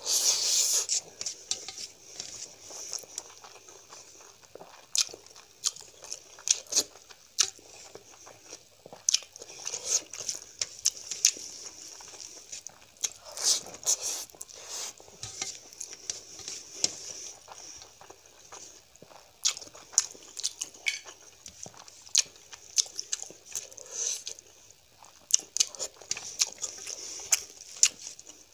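Close-up wet chewing and lip-smacking of a mouthful of rice and curry, with many irregular sharp smacks, and fingers working the rice against a steel plate.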